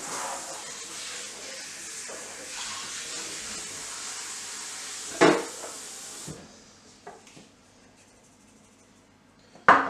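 Steady sizzling hiss of food frying in a pan, which cuts off about six seconds in, with two sharp knocks of kitchenware, one about five seconds in and a louder one near the end.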